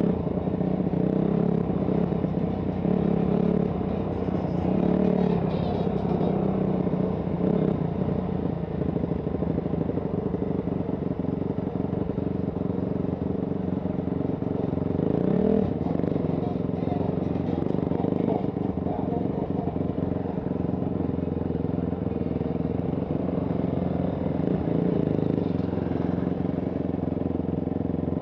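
Motocross bike engine running steadily at low revs as the bike is ridden slowly, its pitch shifting slightly with the throttle.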